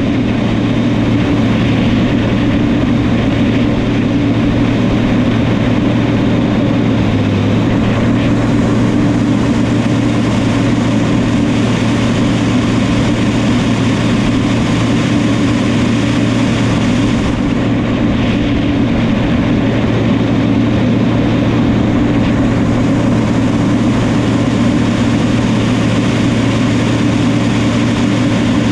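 Diesel engine of a New Holland crawler dozer running steadily, a loud, even drone that holds the same pitch throughout.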